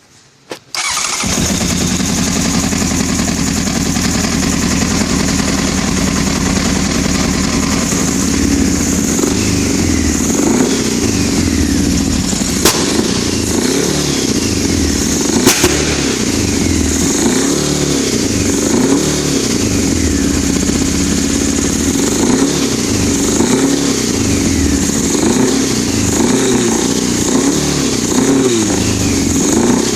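A 1996 Honda CBR900RR's inline-four engine catches about a second in and keeps running, revved up and down over and over. There are two sharp clicks partway through.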